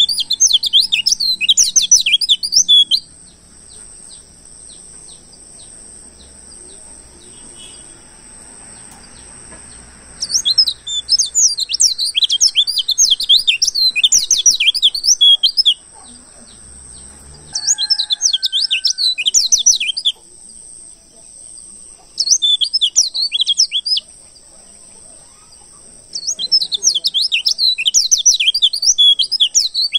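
White-eye (pleci) song: bouts of rapid, high twittering a few seconds long, five in all, separated by short pauses. A faint steady high tone runs beneath after the first bout.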